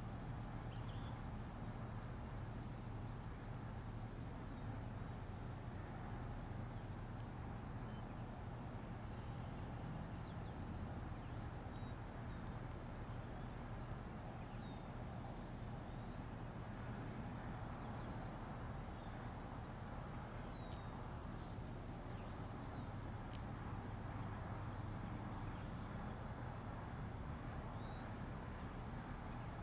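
An insect chorus making a continuous high-pitched trill. It drops out about five seconds in and fades back in roughly twelve seconds later, over a faint steady low background hum.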